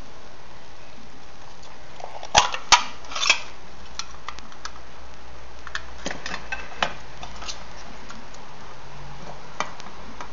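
Small hinged metal tin being handled and opened: a few sharp metallic clicks and clanks, the loudest three in quick succession about two and a half seconds in, then lighter taps and ticks.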